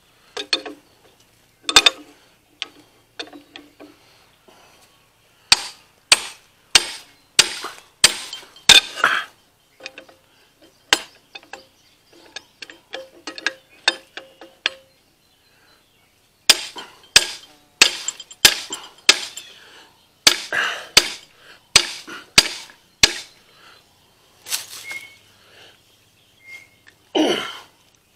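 Ball-peen hammer blows on metal at the frost-free hydrant head and the adjustable wrench clamped on it, hammering to free the seized head. The sharp, ringing strikes come in runs of about two a second, with a heavier blow near the end.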